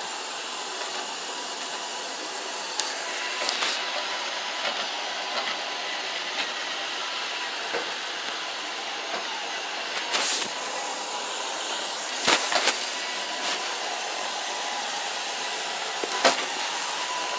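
iRobot Roomba robot vacuum running: a steady whirring hiss from its vacuum motor and brushes with a faint steady whine, broken a few times by short sharp knocks.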